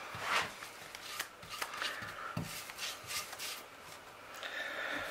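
Paintbrush bristles swishing over a wooden board as a coat of finish is brushed on, in a run of short, irregular strokes.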